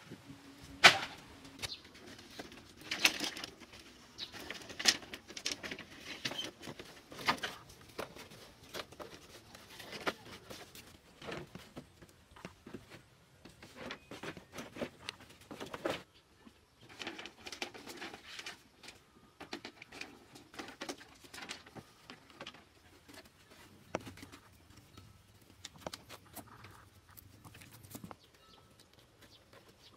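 Bamboo poles and slats knocking and clattering as they are handled and laid down, a string of irregular clacks with the sharpest about a second in.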